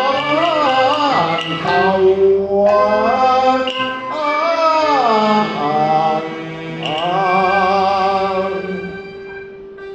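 Cantonese opera singing: a long, drawn-out sung phrase with wavering, sliding pitch over traditional instrumental accompaniment. The voice fades near the end while a held instrument note carries on.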